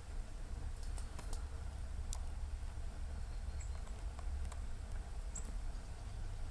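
Light scattered clicks and scratches of a Eurasian red squirrel's claws on a dead log as it forages, over a steady low rumble. A couple of very brief high peeps come in near the middle and near the end.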